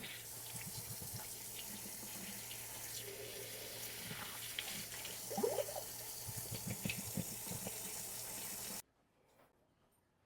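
Hot water running from a tap into a sink as hummingbird feeders are washed, with scattered knocks and clunks of the feeder parts being handled. The water stops abruptly near the end.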